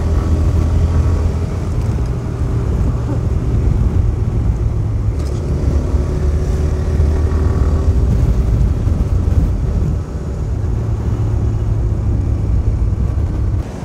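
TVS Raider 125's single-cylinder engine running steadily at cruising speed, heard with a strong low wind rumble on the rider's helmet microphone. The sound eases slightly near the end.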